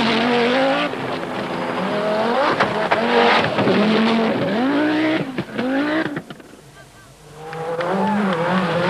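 Group B rally car engine revving hard through repeated gear changes as the car approaches and passes, fading away about six seconds in. Another car's engine comes up near the end.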